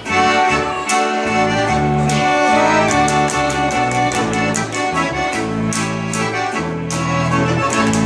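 Live Bavarian folk band music led by an accordion, over a pulsing bass line and sharp percussive hits on the beat.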